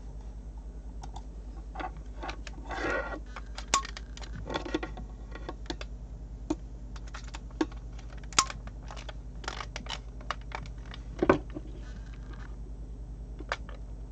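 Irregular plastic clicks and rattles as RJ45 network cable plugs are handled and snapped into the master and remote units of a network cable tester, with a few louder clicks scattered through, over a steady low hum.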